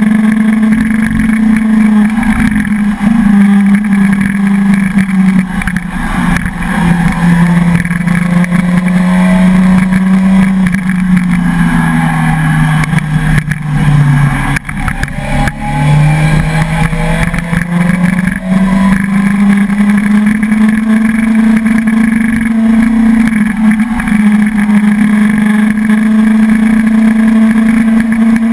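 Suzuki sport motorcycle's engine running hard at steady revs, with wind rushing past the bike-mounted microphone. About halfway the engine note sinks as the bike slows, with a brief dip in loudness, then climbs back as it accelerates again.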